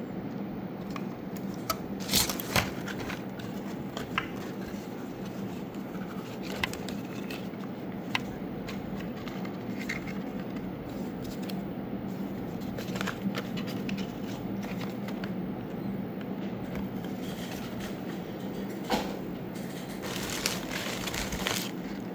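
Packaging of a gaming mouse being handled and unwrapped: scattered clicks, scrapes and crinkles, the sharpest two clicks about two seconds in, over a steady low hum.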